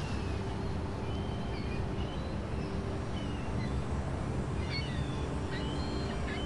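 Birds chirping in short, scattered calls over a steady low rushing noise.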